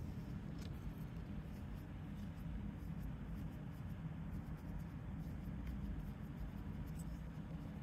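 Faint rustling and scratching as polyester fiberfill stuffing is pushed into a crocheted amigurumi body with a wooden stuffing stick, with a few light ticks over a low steady hum.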